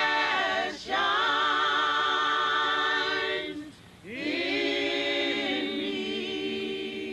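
Women's choir singing a cappella: long held notes with vibrato, in phrases broken by short breaths about a second in and again near four seconds, the last phrase fading away near the end.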